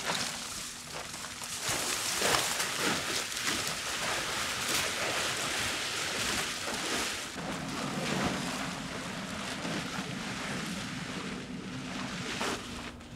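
Large plastic tarps rustling and crinkling as they are dragged and pulled off wooden raised beds, a continuous scraping rustle with sharper crackles here and there.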